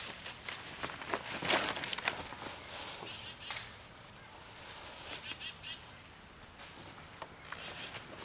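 Dry fallen leaves rustling and crackling, with a few sharp clicks and snaps scattered through.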